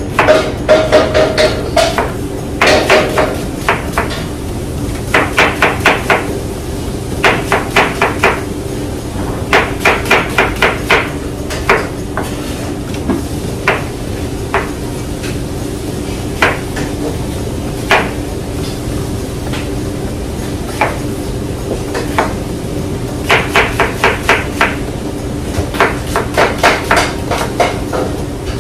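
Runs of rapid sharp knocks, about five a second, each run lasting a second or so with short pauses between, over a steady hum.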